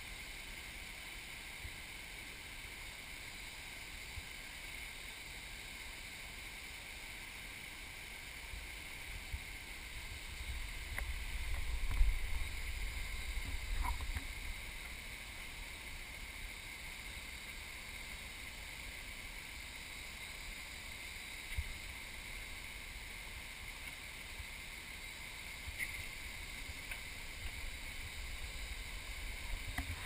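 Steady rush of water cascading down a rock slide into pools. For a few seconds around the middle, low gusts of wind buffet the microphone.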